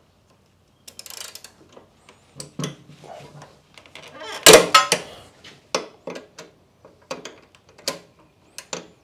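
A 3/8-inch ratchet with a 10 mm socket on an extension being worked against a tight steel engine oil drain plug: a run of sharp clicks and knocks, with a loud sudden crack about four and a half seconds in as the plug breaks free, then the ratchet clicking in single ticks as it is swung back and forth.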